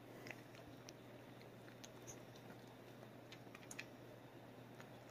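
A dog eating kibble from a bowl: faint, scattered crunches and clicks of chewing, a few of them a little sharper, over a low room hum.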